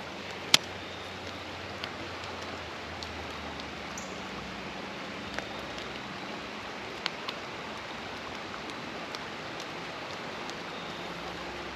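Creek water running steadily, with a few sharp clicks, the loudest about half a second in.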